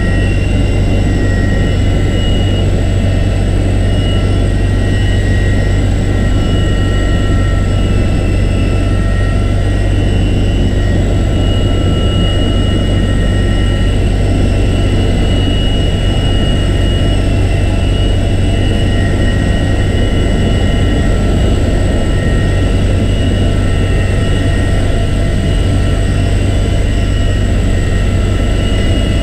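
Cabin noise inside the cockpit of a US Navy MH-53E Sea Dragon helicopter in flight: its three turboshaft engines and main rotor make a steady, loud deep rumble, with several steady high-pitched whines on top. The helicopter is making a low approach over a ship's flight deck, and the noise holds even throughout.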